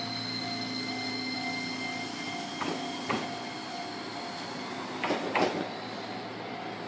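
A red low-floor electric tram moves away over the track, with a steady electric whine that thins out about two seconds in. Its wheels then clank over rail joints or points in two pairs, about three and five seconds in.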